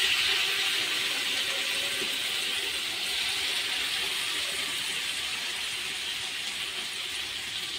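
Marinated chicken skewers sizzling in melted butter on a hot tawa, a steady frying hiss that slowly grows quieter.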